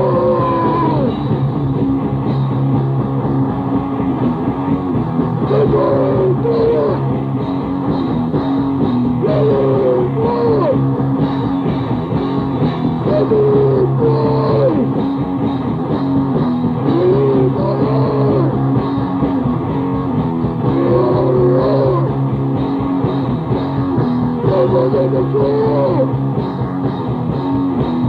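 Grindcore/noisecore music: heavily distorted guitar over fast drumming, loud and unbroken. A wavering, sliding pitched part comes back about every four seconds.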